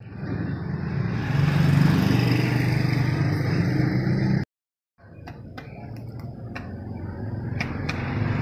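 Roadside traffic noise with a vehicle engine's low hum. A brief dead silence cuts in a little past the middle. After it the noise is quieter, and a few light clicks of bamboo satay skewers being handled come through near the end.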